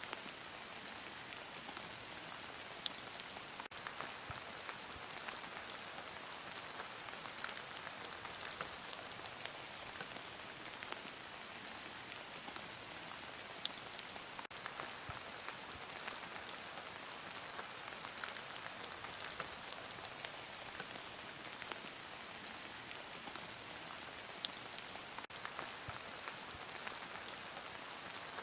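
Heavy rain falling steadily: a dense, even hiss with scattered small sharp drop ticks.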